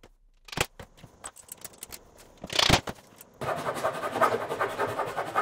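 A handsaw cutting the oversized wooden runner off flush with the edge of a plywood sled base, in a steady run of quick back-and-forth strokes that starts a little past halfway. Before it come a few knocks and a short loud burst of noise about two and a half seconds in.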